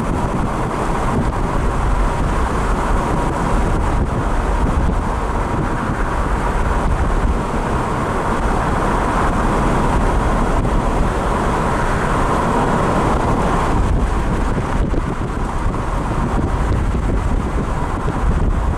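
Steady rushing noise of a moving car on the road, with wind buffeting the microphone.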